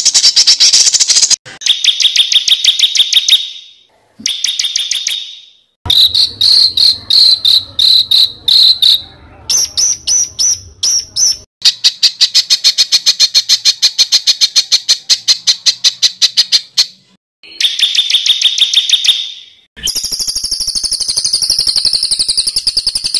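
Masteran bird-song recording: a string of high-pitched, very fast trills and rattling calls, each phrase lasting a second to a few seconds, with short breaks between them.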